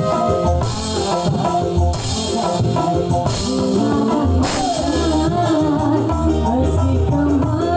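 Dangdut koplo band playing live, with singing over a steady drum beat, bass and keyboard.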